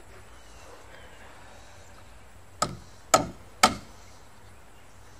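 Three hammer blows about half a second apart, starting about halfway through: a framing hammer driving a nail into a wooden roof truss.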